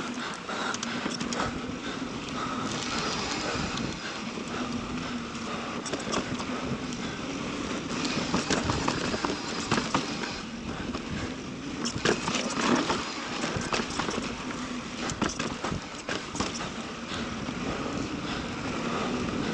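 Mountain bike riding down a dirt singletrack: tyres rolling over soft, loose trail soil, with frequent short knocks and rattles from the bike over bumps and a steady low hum underneath.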